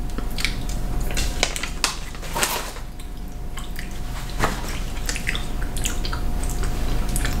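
Scattered small crinkles and clicks from a plastic candy wrapper being handled, with mouth sounds of gummy candy being chewed, over a steady low room hum.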